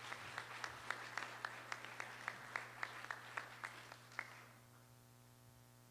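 Applause from an audience and a panel on stage, with a few sharp claps close by standing out; it dies away about four and a half seconds in. A steady electrical hum runs underneath.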